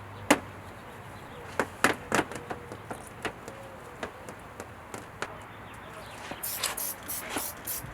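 A few sharp clicks and knocks, then from about six and a half seconds in a quick run of short hissing sprays, about three a second, from a trigger spray bottle of quick detailer.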